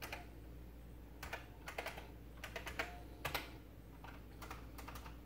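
Computer keyboard keys being pressed, faint clicks in short irregular clusters.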